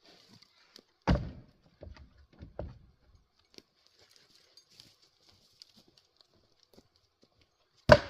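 A 3.5 lb Velvicut Jersey splitting axe strikes a firewood round with a heavy thud about a second in, followed by a few lighter wooden knocks. Near the end a second, sharper axe strike rings briefly.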